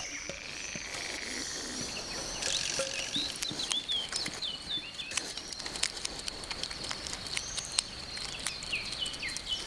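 Outdoor nature ambience: a small bird gives repeated short, falling chirps from about three seconds in, over a faint steady high whine and many small clicks and crackles.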